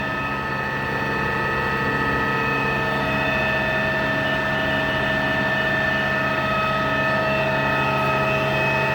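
Southwestern Industries 2460SX ProtoTRAK CNC lathe running a program, its spindle and drive giving a steady machine whine of several tones at once.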